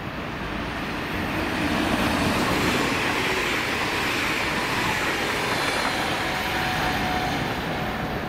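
ODEG Class 445 (Stadler KISS) double-deck electric multiple unit passing through without stopping, its wheels running on the rails in a steady rumble that grows over the first second and is loudest two to four seconds in.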